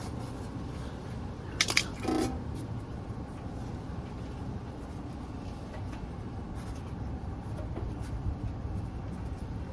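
Hands working the drain fitting under an air compressor tank: two short metallic clicks about two seconds in, then only a faint steady low background while a little liquid drains out.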